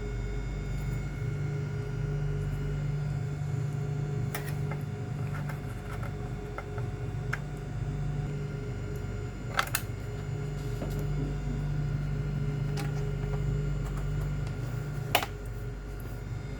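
A steady mechanical hum with a few scattered sharp clicks. The loudest clicks come as a quick pair about ten seconds in and once more near the end.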